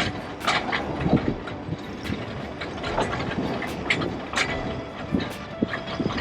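Great Orme Tramway cable-hauled tramcar running on its track: a continuous rumble with irregular clicks and rattles, and a brief squeal about five seconds in.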